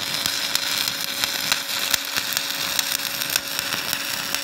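Stick (SMAW) welding arc crackling and sizzling steadily, with frequent sharp pops, while running a stringer fill pass on a flat test plate. A steady low hum sits underneath.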